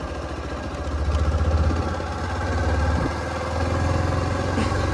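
Small motorcycle engine running under the rider while riding. It grows louder about a second in, eases slightly around three seconds, then picks up again.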